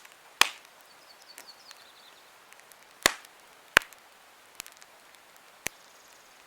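Campfire crackling: sharp wood pops about half a second in, twice between three and four seconds, and fainter ones later, over a low steady hiss.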